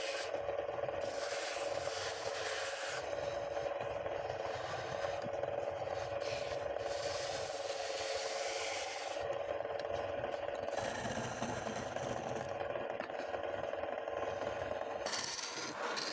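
Wood lathe running with a steady motor hum while a tool scrapes against the spinning palm-wood ball in repeated passes a second or two long.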